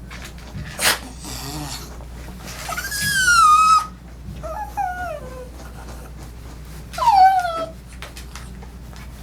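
A dog whining: three falling whines, the first, about three seconds in, long and loudest, a shorter one after it, and another about seven seconds in. A sharp click about a second in.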